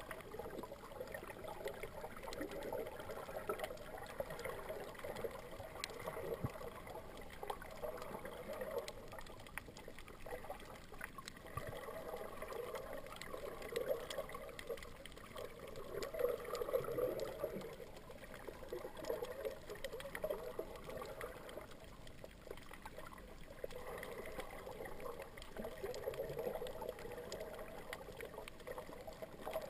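Muffled underwater water noise picked up by a submerged camera: a rushing swish that swells and fades every few seconds, with faint scattered clicks.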